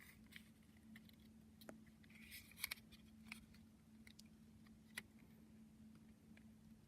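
Near silence with a faint steady hum, broken by a few light clicks and a brief rustle about two and a half seconds in, from handling a plastic model railway brake van and its packaging.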